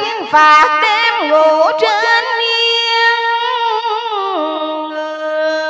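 A woman singing Vietnamese cải lương into a hand microphone, in long held notes with wavering, ornamented turns of pitch.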